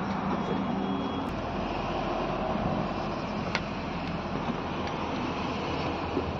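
BharatBenz truck's diesel engine idling steadily, heard from inside the cab, with a faint click about three and a half seconds in.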